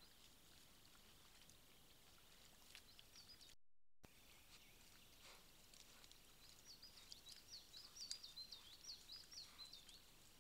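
Near silence with a faint steady hiss, over which a small bird sings a quick run of short high chirping notes, busiest in the second half. The sound drops out completely for about half a second a third of the way in, where the recording is spliced.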